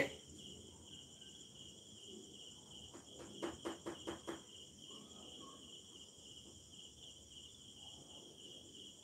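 Crickets trilling steadily in a high, even pulse. About three seconds in, a quick run of about six light clicks.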